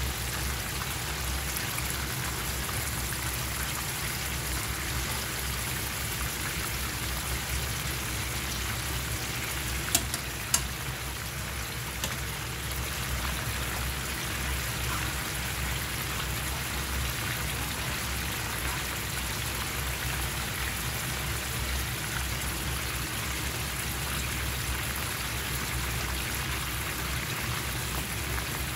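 Soy-sauce braising liquid boiling hard in a frying pan, a steady bubbling sizzle as the glaze reduces. Two sharp taps come about ten seconds in.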